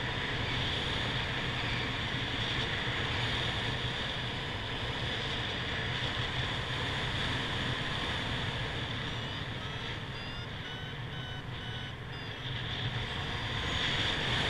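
Airflow rushing over the camera microphone in paraglider flight: a steady rush with a low rumble. About ten seconds in, a variometer gives a short run of beeps stepping up in pitch, the sign that the glider is climbing in lift.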